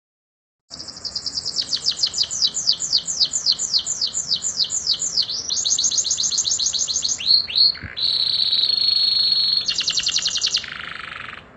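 Domestic canary singing one long song phrase after a brief silence: a run of rapid, repeated high downward-sweeping notes, about four a second, then a faster trill, a held whistle, and a fast buzzing roll before it stops near the end.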